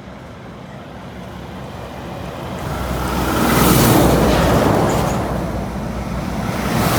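Road traffic passing close by on a highway: engine and tyre noise build to a peak about four seconds in and fade, then a second vehicle swells near the end.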